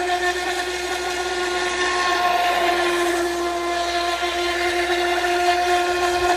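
Feilun FT011 RC speedboat's brushless motor running at speed, a steady high-pitched whine.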